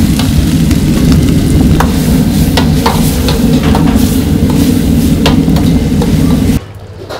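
Stir-frying in a wok over a high-flame gas burner: sizzling and irregular metal ladle clanks against the wok over the burner's loud low rush, which cuts off suddenly about six and a half seconds in.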